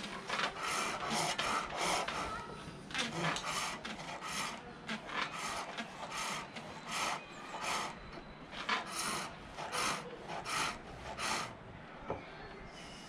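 Green silver birch being turned on a foot-powered pole lathe: the turning tool shaves the spinning wood in short rasping bursts, about two a second, one for each treadle downstroke. The cutting stops about a second before the end.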